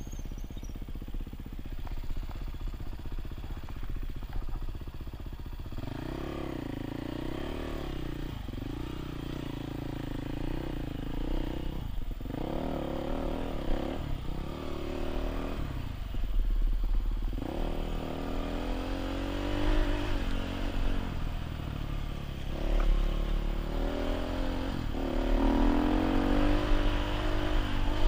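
Dirt bike engine running steadily for the first several seconds, then revving up and down in repeated swells as the throttle is opened and closed.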